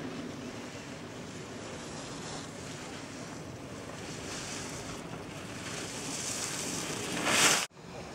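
Wind buffeting the camera microphone, a steady rushing hiss that grows brighter in the second half, swells to a loud gust about seven and a half seconds in, and cuts off suddenly.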